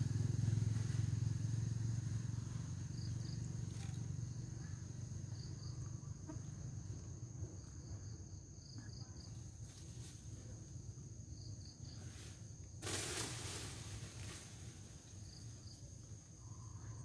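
Outdoor ambience: a steady high insect drone with short double chirps every second or two, over a low engine hum that fades away during the first several seconds. A brief burst of noise comes about 13 seconds in.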